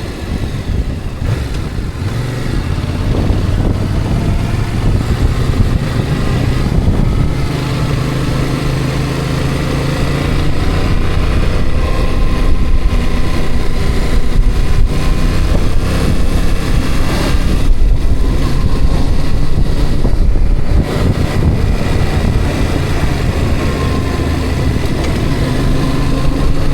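Road vehicle under way: steady engine and road rumble, the engine note shifting in pitch now and then.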